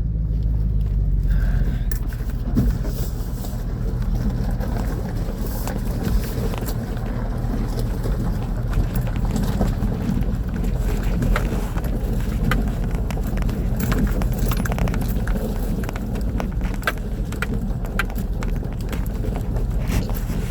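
Off-road vehicle driving slowly along a rough dirt trail: a steady low engine rumble with scattered clicks and knocks from stones and the vehicle's rattles.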